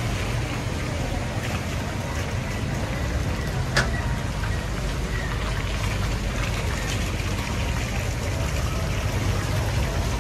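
Street traffic on rain-wet roads: cars and motorcycles running with a low engine rumble under a steady hiss of tyres on wet asphalt. A single sharp click stands out about four seconds in.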